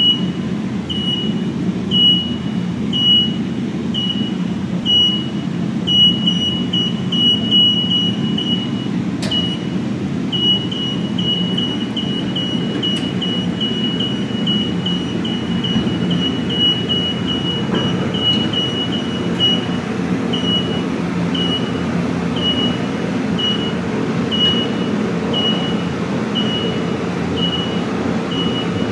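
An automatic guided vehicle's warning beeper sounds short, high beeps about once a second, quickening to a faster run through the middle. Under it is a steady low rumble of the vehicle and its train of towed carts rolling.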